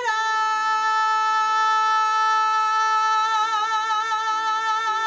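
A woman's singing voice holding one long sustained note, plain at first, with vibrato coming in about three seconds in. Soft accompaniment chords change underneath.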